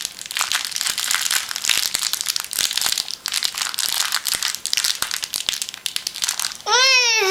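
Packaging being handled and crinkled in small hands, a dense crackle of crumpling wrapper. Near the end a young child gives a high, wavering vocal squeal.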